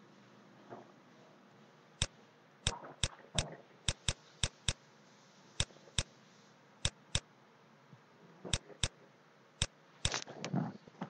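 A series of sharp, dry clicks from the device used to handwrite on a computer screen, spaced irregularly and some coming in quick pairs, as each pen stroke is put down and lifted. A brief soft noise comes near the end.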